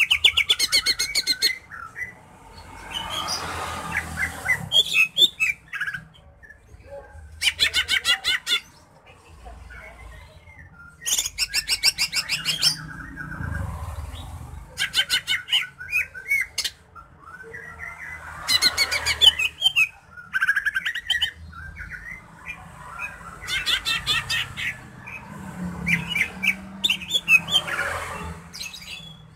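Greater green leafbird (cucak ijo) male singing: fast rattling trills repeated every few seconds, with varied chattering and squeaky phrases between them.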